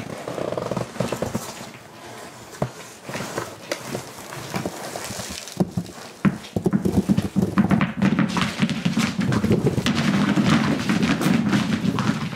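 Tennis balls dropping, bouncing and knocking on a hardwood floor: many quick thuds, which from about halfway thicken into a steady low rumble of dozens of balls rolling and clattering together.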